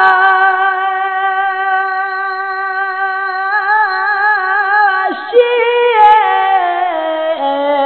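A singer's voice in a Balti qasida holding one long note with a slight waver for about five seconds, then stepping down through several lower notes.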